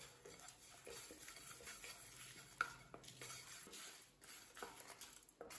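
Wooden spatula stirring and scraping a dry-roasting mix of sesame seeds, cumin, peppercorns, urad dal and dried red chillies around a nonstick pan, the seeds rustling and skittering. There is one sharper tap of the spatula about two and a half seconds in.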